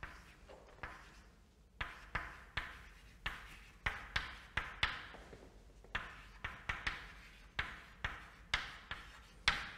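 Chalk writing on a blackboard: an irregular run of sharp taps with short scratches, about two a second, as letters are written.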